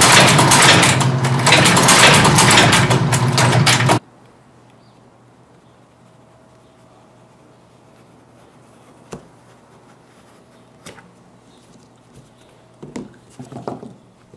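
Blake stitching machine running, its needle driving rapid stitches through a shoe sole with a dense mechanical rattle that stops abruptly about four seconds in. After it, a few faint clicks and scrapes of a utility knife cutting a sheet of board, clustered near the end.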